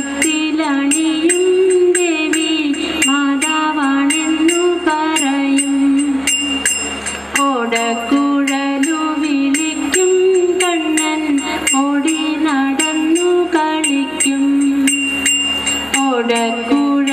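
A recorded song for a children's stage dance, with a voice singing a melody over a quick, steady beat of jingling percussion.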